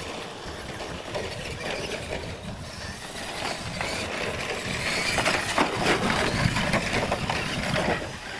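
Radio-controlled monster trucks racing on a dirt track: their motors running and knobby tyres crunching over dirt and gravel, louder past the middle of the run.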